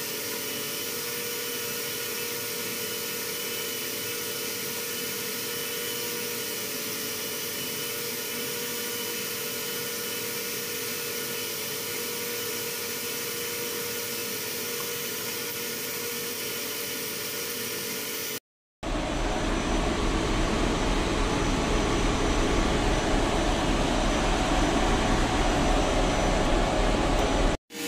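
Steady drone of ship's engine-room machinery, a constant hum with several held tones; after a short cut about two-thirds through it comes back louder and deeper-rumbling.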